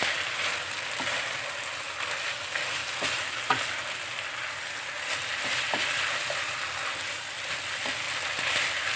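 Chicken and vegetables sizzling steadily in a hot pan over high heat as they are stir-fried, with a few light clicks as the food is stirred.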